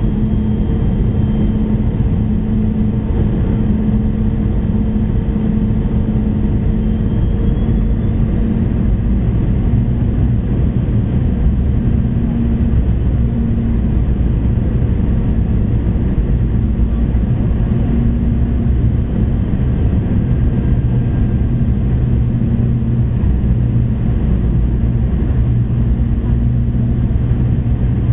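Steady cabin noise inside a Boeing 717-200 descending on approach: the rush of airflow and the drone of its rear-mounted Rolls-Royce BR715 turbofans, with a constant low hum.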